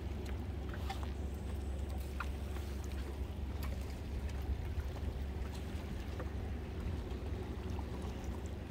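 A low, steady mechanical hum, like a distant engine drone, with a few faint clicks over it.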